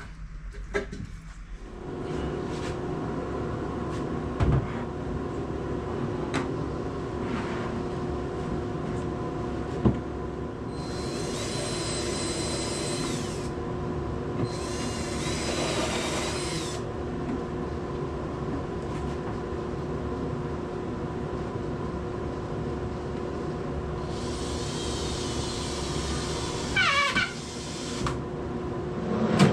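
Cordless drill driving screws into a cabinet carcass in three runs of a few seconds each, with a high motor whine that winds down at the end of the last run. A steady hum runs underneath.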